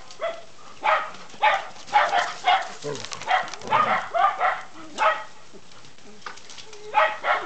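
Standard poodles barking in short, repeated barks about twice a second, pausing for a couple of seconds near the end before barking again.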